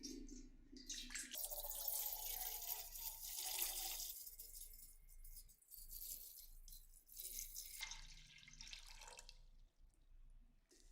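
Running water spattering in two stretches: a longer one of about two and a half seconds, then a shorter one near the end.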